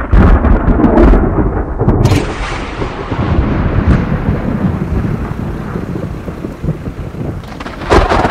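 Thunder rumbling and rolling over falling rain, loud, with a sharp crack about two seconds in.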